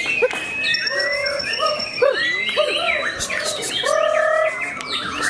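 Several white-rumped shamas (murai batu) singing over one another in competition: loud varied whistled phrases, swooping up-and-down notes, wavering held notes and high thin tones.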